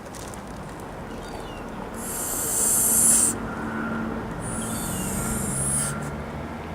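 Toulouse gander hissing twice, each a harsh hiss over a second long: a threat display to warn a person away from his mate.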